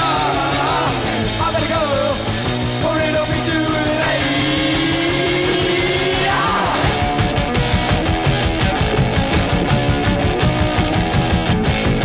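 Rock music playing over the footage, with sustained, bending melodic lines; a steady, driving drum beat comes in about seven seconds in.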